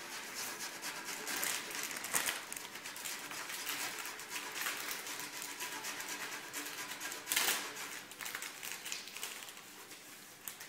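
Rapid, irregular scraping strokes of food rubbed down a metal box grater, mixed with the rustle of a plastic spaghetti packet being handled; a brief louder burst of noise comes about seven seconds in.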